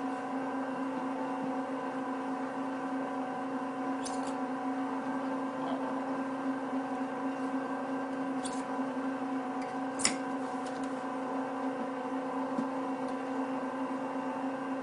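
Arcobaleno AEX18 tabletop pasta extruder running steadily, its motor driving the auger that pushes dough out through the die as the die warms up. It is a steady hum with several steady tones, broken by a few sharp clicks, the loudest about ten seconds in.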